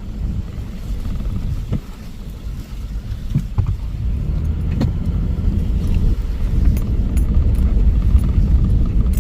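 Low rumble of a car on the move, growing steadily louder, with a few faint clicks.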